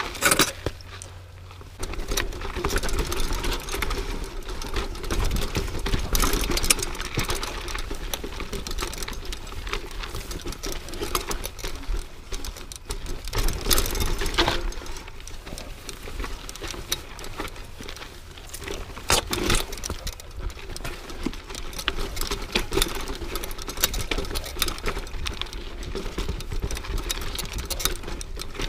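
Mountain bike riding over a rough dirt trail: tyres rolling on dirt and rock, with a dense, constant rattle and clicking of the bike over the bumps. It eases off briefly about a second in.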